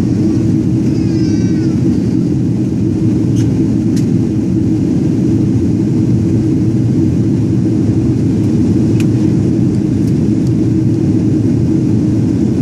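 Steady cabin noise of a jet airliner in flight, engine and airflow noise heard from inside the passenger cabin as an even, low rumble.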